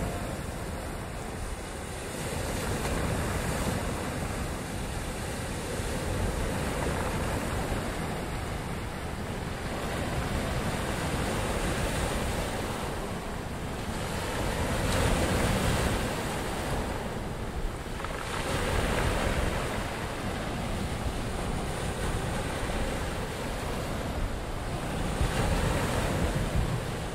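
A steady rushing noise, like surf or wind, rising and easing every few seconds, with no voice or melody.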